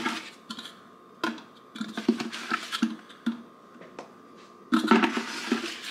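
Plastic scoop knocking and scraping inside a nearly empty plastic protein-powder tub, with scattered light taps and a louder rattle about five seconds in.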